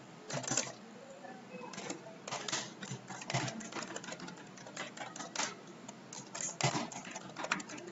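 Typing on a computer keyboard: an irregular run of key clicks as a username and password are entered.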